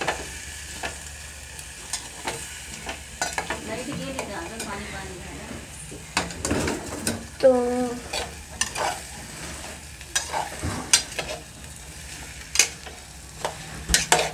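A metal ladle stirring diced potatoes frying in oil in a metal pot, with frequent clicks and scrapes of the ladle against the pot over a faint steady sizzle.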